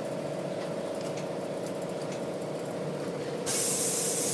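Forenta Bantam lay-down garment press running with a steady hum. About three and a half seconds in, a loud hiss bursts out of the press and keeps going.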